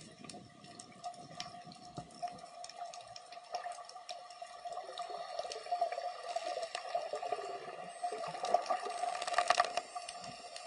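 Water heard underwater through a camera's sealed dive housing: a muffled wash with a steady hum and scattered sharp clicks and crackles, coming thicker about nine seconds in.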